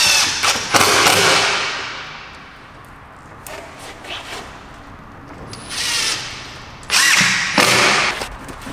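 Cordless drill driving screws through a plywood backing board into a shelf. It runs in several bursts of a second or so, the loudest at the start and near the end.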